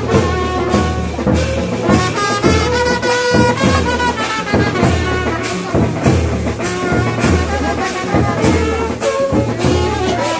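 Music: a melody in long held notes, with drum strokes at a regular beat under it.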